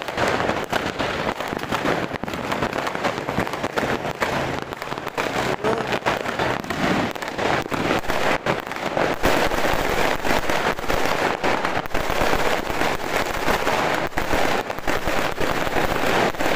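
Fireworks and firecrackers going off in a dense, continuous crackle of rapid pops. No single bang stands out, and it gets slightly louder about halfway through.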